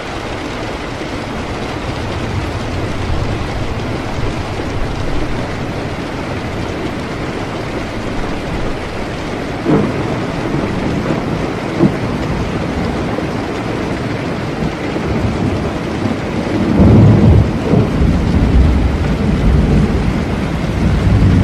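Steady heavy rain through a thunderstorm. Two sharp cracks of thunder come about ten and twelve seconds in, and a loud, low rolling rumble of thunder starts a few seconds before the end.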